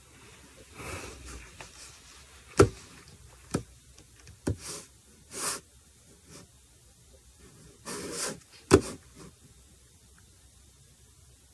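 Handling noise close to the microphone: short bouts of rustling and rubbing with a few sharp taps or knocks. The two loudest knocks come about two and a half seconds in and near the end.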